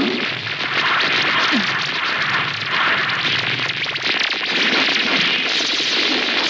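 Loud, steady rushing noise of animated-action sound effects, with a short falling tone about a second and a half in.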